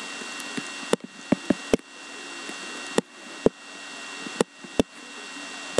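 About eight short, sharp clicks or taps at uneven intervals, over a steady hiss with a faint, thin high whine; the hiss drops out after each click and slowly swells back.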